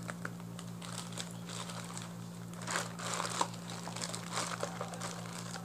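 Thin plastic toy packaging bag crinkling as it is handled and opened with scissors, in irregular rustles that come thickest a little past the middle.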